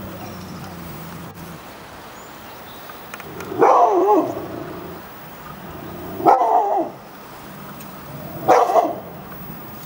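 Mixed-breed dog barking in three short bouts a couple of seconds apart, alarm barking at a white-sheeted 'ghost' figure.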